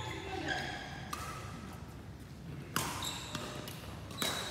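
Court shoes squeaking in short chirps on a synthetic badminton court floor, with one sharp tap about three seconds in.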